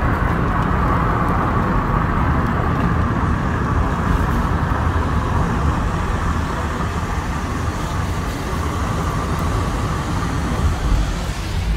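Steady road noise of a car driving along a wet road, heard from inside the cabin: an even rumble of engine and tyres with a hiss on top.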